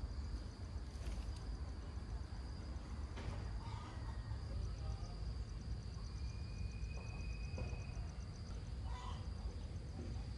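Outdoor background: a steady low rumble with a faint, rapid high-pitched pulsing through the middle, a few short faint chirps and some soft clicks.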